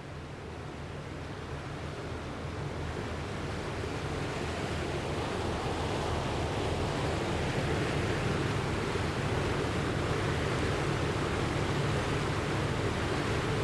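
Rushing flood water, a dense wash of water noise with a low rumble underneath, growing louder over the first half and then holding steady.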